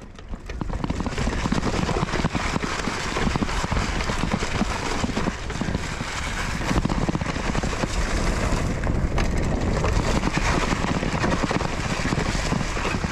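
Wind buffeting the microphone over the rattle and tyre noise of a mountain bike riding down a forest trail, steady after building up in the first half-second.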